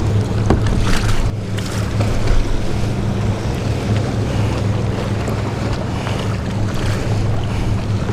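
Wind buffeting the microphone and waves around a kayak in rough, choppy water, over a steady low hum.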